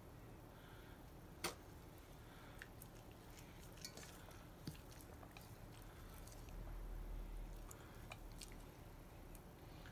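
Great Pyrenees chewing and licking soft wet food taken from the hand, faint and wet. A few sharp clinks of a metal spoon against a stainless steel bowl come through, the loudest about a second and a half in.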